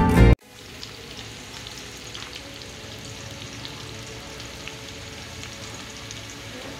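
Music cuts off a moment in, then sliced red onions and bay leaves sizzle steadily in hot oil in a kadai, with small scattered crackles.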